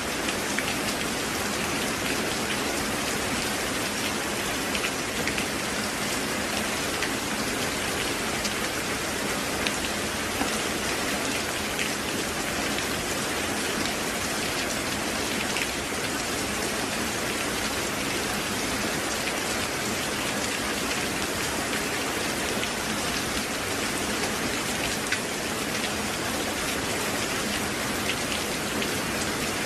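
Steady rain falling as an even, unbroken hiss, with scattered sharper drop hits ticking through it.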